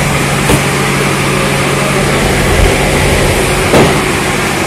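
Loud, steady machine hum and rush with a constant low drone. Two short knocks from cardboard cartons being handled come through it, about half a second in and again near the end.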